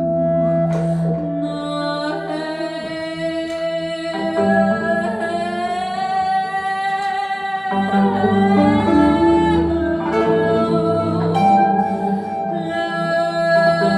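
Free-improvised ensemble music: a singing voice with sliding, held notes over sustained instrumental tones, with a few sharply struck or plucked notes.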